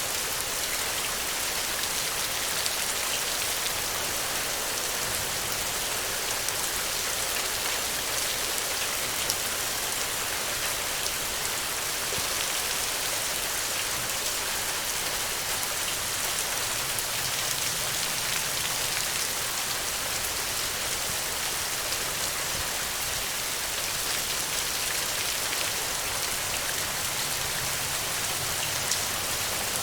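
Steady rain falling on the ground, an even hiss with scattered drops pattering.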